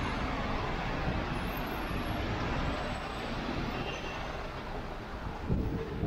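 Steady traffic and road noise on a rain-wet city street, heard from a moving bicycle, with a short thump near the end.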